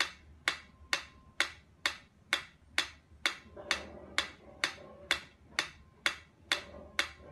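Mechanical pyramid metronome ticking steadily, about two sharp clicks a second.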